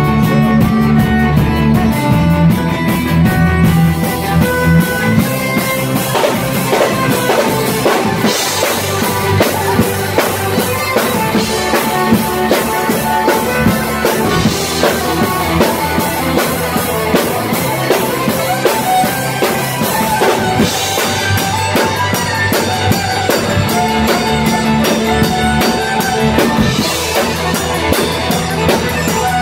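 Folk-punk band playing live: fiddle melody over electric guitar and bass, with the drum kit coming in hard about five seconds in and cymbal crashes every few seconds.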